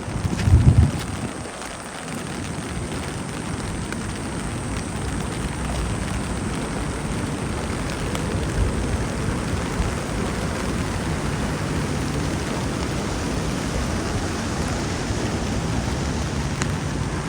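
Steady rain falling, an even hiss that runs throughout. A brief, loud low thud comes about half a second in.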